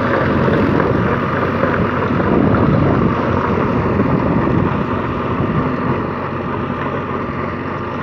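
Fiat 480S tractor's 55 hp three-cylinder diesel engine working steadily under load as it drives a 48-blade rotavator through dry soil. It gets a little quieter in the second half as the tractor pulls away, with some wind on the microphone.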